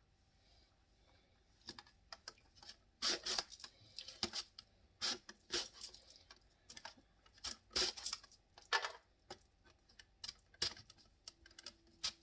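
Eggplant being sliced on a mandoline: irregular clacks and scraping strokes of the blade and food holder, some much louder than others.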